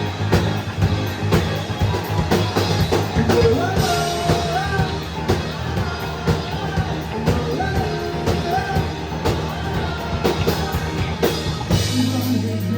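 Rock band playing live: a lead vocal sings a melody over a steady drum-kit beat, bass and guitars.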